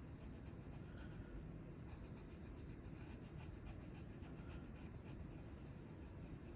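Yellow colored pencil scribbling on paper in quick back-and-forth strokes, pressed down hard with a dull tip to fill in a shape solidly. Faint.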